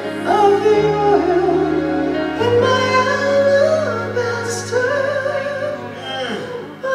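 A woman singing a slow gospel solo into a microphone, with long held notes, over sustained low accompaniment chords that change about a second in and again about two and a half seconds in.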